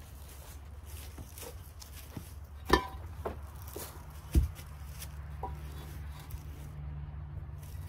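Concrete cinder block being set down and shifted into place against another block: two sharp knocks about three seconds in and again a second and a half later, the second a heavy thump, among footsteps on dirt.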